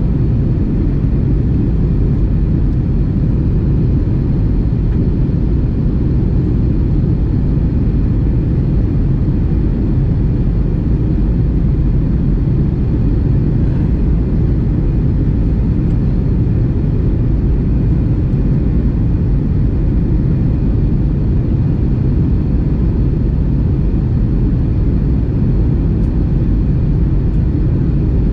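Jet airliner cabin noise at a window seat during descent: a steady low rumble of the engines and rushing air, with a faint steady whine over it.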